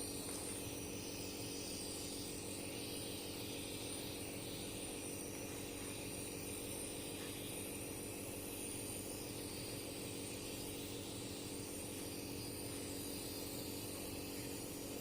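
Steady machine-like hum with a hiss over it, even and unchanging, with no distinct events.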